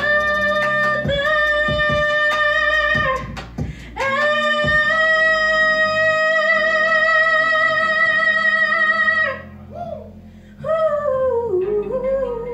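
Woman singing into a microphone over backing music: long held notes, the longest lasting about five seconds from roughly four seconds in, then a falling run near the end.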